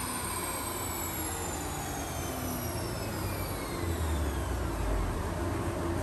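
BMW B58 turbocharged inline-six with a catless downpipe and stock exhaust, coming down off a dyno pull: a high whine falls steadily in pitch over the engine's lower note. The low exhaust sound swells again about four seconds in.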